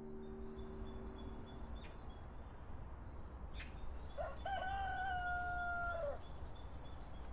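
A rooster crows once, a long call starting about four seconds in and lasting about two seconds, over small birds chirping steadily. The last piano notes fade out at the start.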